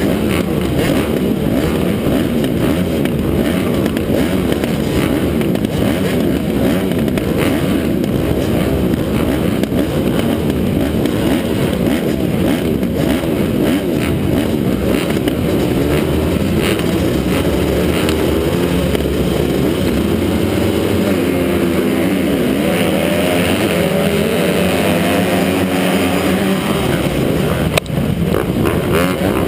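A pack of 250-class motocross bikes running together on the start line, engines held at revs and wavering up and down in pitch. About two seconds before the end a sharp knock, the start gate dropping, and the bikes launch at full throttle.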